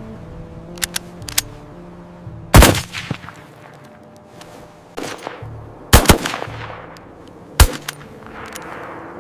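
A series of loud, sharp knocks or blows at irregular intervals, five strong ones with short ringing tails and a few faint clicks before them, over soft background music.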